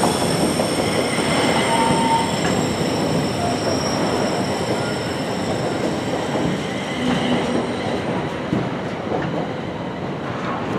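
Container wagons of an intermodal freight train rolling past at close range: a continuous rumble of steel wheels on rail, with brief wheel squeals, one about two seconds in.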